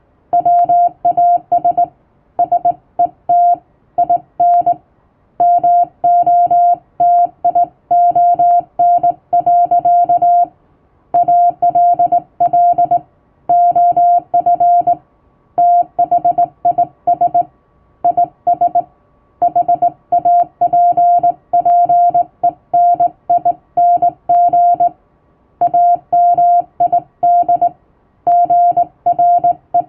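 Morse code (CW) tone sent by hand on a straight key: one steady beep pitch switched on and off in dots and dashes, with short pauses between groups of characters.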